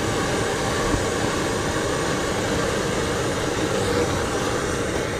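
BRS 3000T titanium canister stove burning on high, its gas flame giving a steady hiss.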